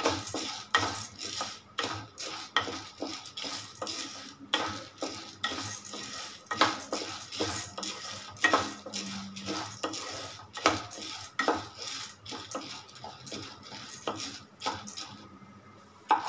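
Wooden spatula stirring and scraping split toor dal and chana dal around a nonstick kadai as the lentils roast in a little oil on medium flame. The scrapes and the rattle of dal come about once or twice a second and ease off near the end.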